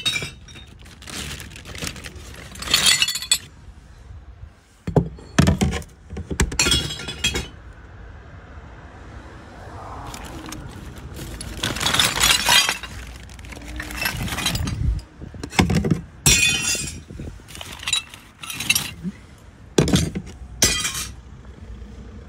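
Glass bottles dropped one after another into a bottle bank for coloured glass, smashing and clinking inside, about a dozen times with a longer run of breaking glass midway.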